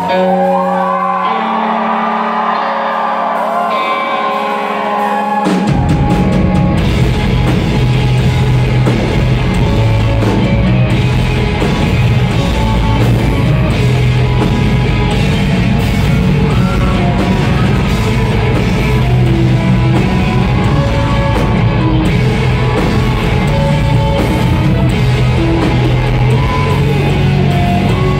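Live rock band playing through a concert PA. For the first few seconds only held guitar and keyboard notes ring out, then drums and bass guitar come in with the full band about five and a half seconds in and keep playing loudly.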